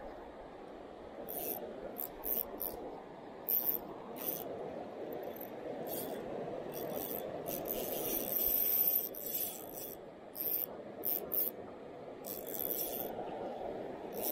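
Steady rush of flowing river water, with short high scraping rasps coming over it again and again, thickest in the middle.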